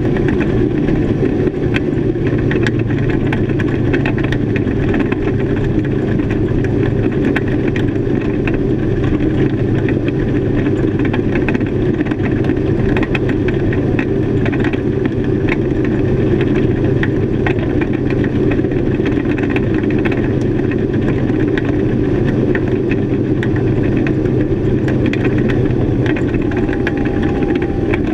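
Twin Honda 225 hp four-stroke V6 outboard motors running steadily under way at planing speed.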